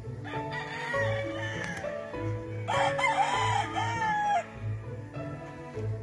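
Two rooster crows, the second louder and longer, over background music with a steady beat.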